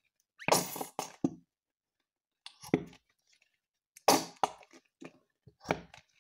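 Squeezed plastic bottle of white glue sputtering and squelching as glue and trapped air squirt out into a plastic tub, in four short bursts a second or so apart.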